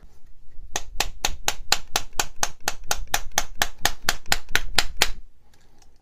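Rapid light tapping with a hand tool, about four to five strikes a second for some four seconds, working a bearing out of a 3D printer's plastic V-wheel.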